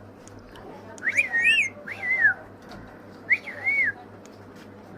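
Parrot whistling three short, wavy whistled phrases that rise and fall in pitch, about a second apart and then again after a longer pause.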